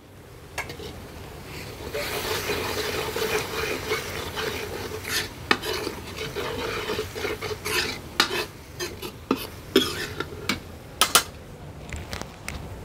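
Masala frying and sizzling in a kadai while a metal ladle stirs and scrapes through it, with sharp clinks of the ladle against the pan. The sizzle swells about two seconds in and eases off near the end.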